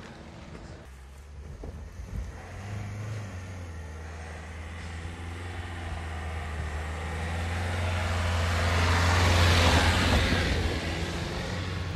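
Dacia Duster 4x4 with the 1.5-litre diesel engine driving up a grassy dirt track and passing close by: a steady low engine hum with tyre and grass noise, growing louder to a peak about ten seconds in, then easing off as it goes by.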